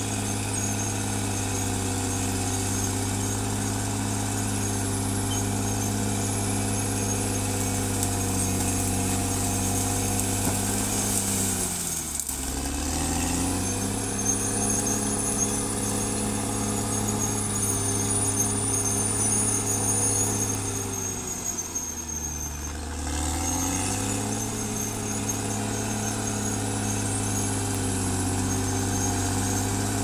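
Caterpillar D6R XL bulldozer's diesel engine running steadily, with a thin high whine over it. Twice, about a third of the way in and again about three-quarters through, the engine note drops sharply and then climbs back up.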